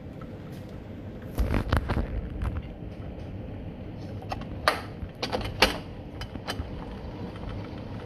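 Storm wind and rain against a high-rise window: a steady low rumble that swells about a second and a half in, with a scattering of sharp clicks and knocks.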